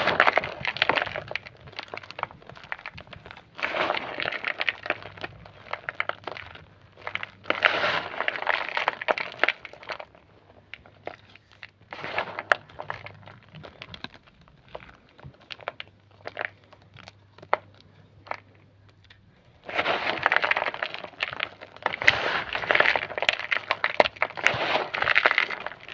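Homemade grey gym chalk being crushed, crunching and crackling in bursts of a second or more, with scattered single cracks between them; the longest stretch of crunching comes in the last quarter.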